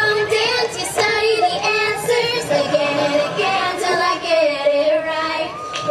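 Recorded song with a high-pitched singing voice and music.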